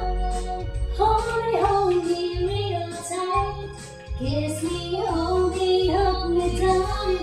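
Background music: a high sung melody over a steady bass line.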